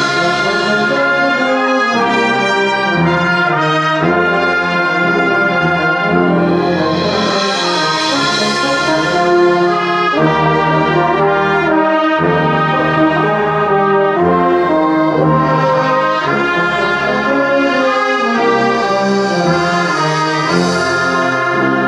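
Large brass band of trumpets, trombones, euphoniums, tubas and sousaphone, with flutes, playing a hymn arrangement in full sustained chords. It swells brighter and louder around eight seconds in and again near the end.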